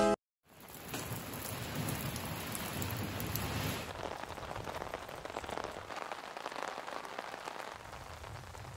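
Steady rain falling on leaves and wet ground: an even hiss with fine ticks of single drops. It begins just after a moment of silence and eases slightly about four seconds in.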